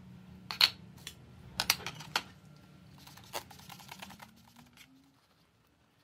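Sharp knocks and clatter of metal scale parts being set down and handled in a plastic tub, loudest about half a second in and again near two seconds in, then fading to light handling noise.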